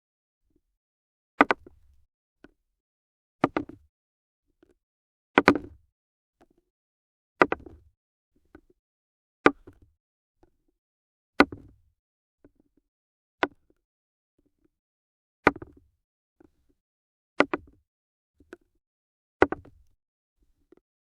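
Axe striking solid wood in ten sharp chops, evenly spaced about two seconds apart, each with a short rattling tail and faint small knocks between the strikes.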